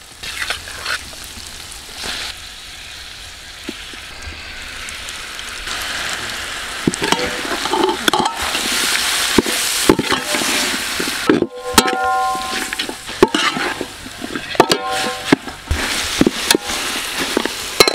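Raw mutton pieces sizzling in hot oil in a large metal pot, the sizzle growing louder about six seconds in as the meat hits the pan. A steel slotted ladle scrapes and clinks against the pot as the meat is stirred into the sautéed shallots, ginger and garlic, with a few short metallic rings.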